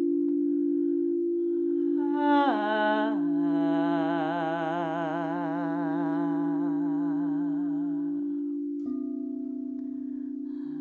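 A singing bowl rings a steady sustained tone. Over it a voice hums one long note with a wavering vibrato, sliding down in pitch about two seconds in, then holding until it fades out near the end.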